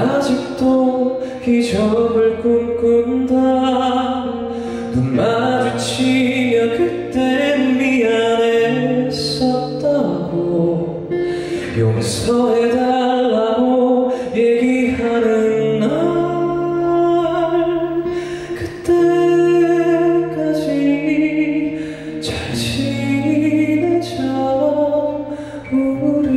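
A male singer performing a slow ballad live, with a band behind him: a steady bass line and guitar.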